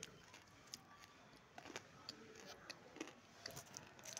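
Faint chewing of crunchy edible clay: scattered small crisp clicks and crackles at irregular intervals.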